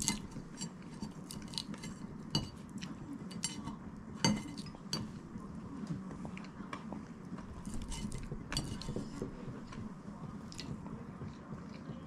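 Chopsticks tapping and picking at a ceramic plate and bowls during a meal, with irregular light clinks of tableware. The sharpest knocks come right at the start and about four seconds in.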